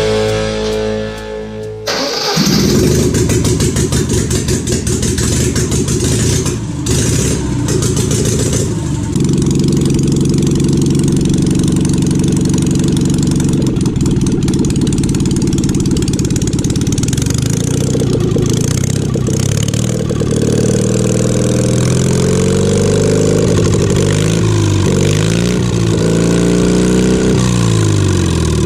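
Citroën 2CV air-cooled flat-twin engine on a home-built motorcycle. It comes in a couple of seconds in, runs somewhat unevenly at first, then settles to a steady idle, and is revved up and down several times in the last several seconds.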